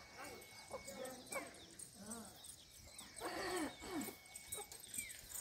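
Several short animal calls, the loudest and longest about three seconds in.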